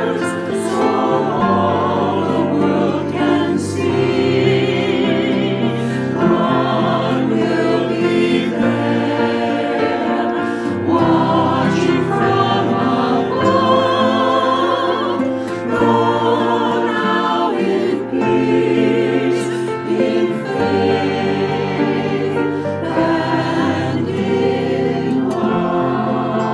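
Church choir singing a slow benediction hymn, with instrumental accompaniment under the voices.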